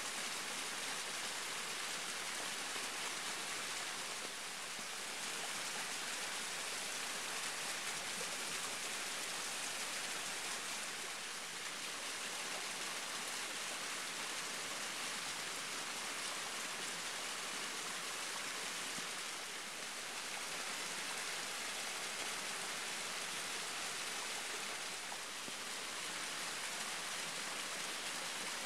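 Waterfall running steadily: an even rush of falling, splashing water.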